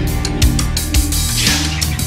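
Loud background music with a steady drum beat.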